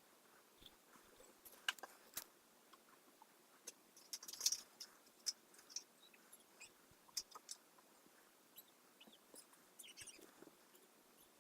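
Faint, irregular small clicks and light scratching from hand work on a plastic model. The densest cluster comes about four seconds in.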